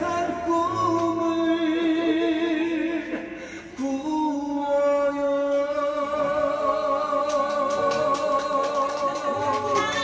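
A man singing a slow trot song into a microphone, holding long notes with vibrato, over instrumental accompaniment; a short pause between phrases about a third of the way in.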